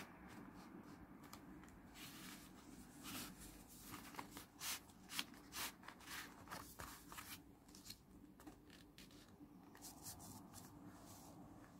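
Faint handling of paper and stationery: a run of short, crisp rustles and clicks at an uneven pace, a few louder ones near the middle.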